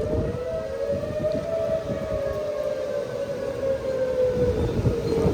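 Outdoor tornado warning siren wailing, its pitch slowly rising and falling, with strong gusting wind blowing beneath it.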